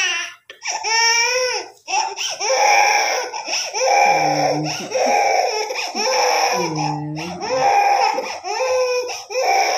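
Baby crying in a series of high-pitched, wavering cries with short breaks between them.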